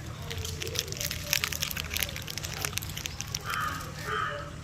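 Dogs chewing crunchy snacks: a run of quick crunching clicks, with two short bursts of rustling near the end.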